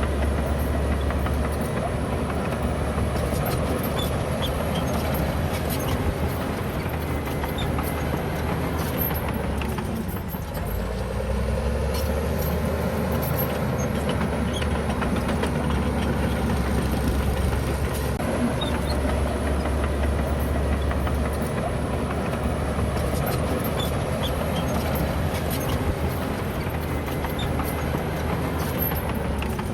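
Heavy diesel earthmoving machinery working steadily. About ten seconds in the engine note drops and then climbs back, and it dips again near the end. A faint high whine slowly rises and falls throughout.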